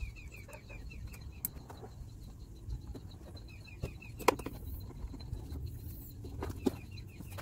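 A songbird singing a quick run of short, falling whistled notes, about eight a second, three times over, above a low background rumble. Two sharp clicks from hand tools at the truck's battery, one about four seconds in and one near the end.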